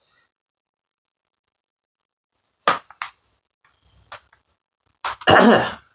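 Plastic CD jewel cases being handled: after a silent pause, two sharp clicks nearly three seconds in, a few faint knocks, then a louder, longer clatter near the end.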